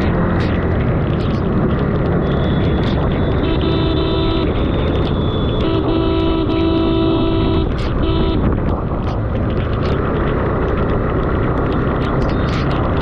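Ride noise from a Suzuki Gixxer 155 motorcycle, steady engine and wind rushing on the microphone, with a vehicle horn honking twice: a short toot about three and a half seconds in and a longer one about six seconds in.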